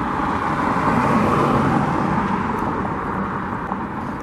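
A road vehicle passing close by: tyre and engine noise that swells to a peak about a second in and then slowly fades.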